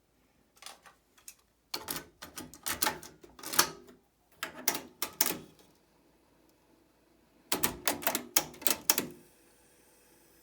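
Sony TC-RX410 cassette deck being operated: quick runs of mechanical clicks and clunks from its buttons and tape mechanism, four bursts in all, followed near the end by a faint steady hiss.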